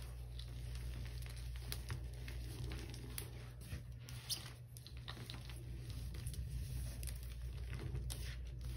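Dried chunks of Comet cleanser powder crumbling between fingers, crumbs and dust pattering down onto a heap of powder in irregular soft crackles, over a steady low hum.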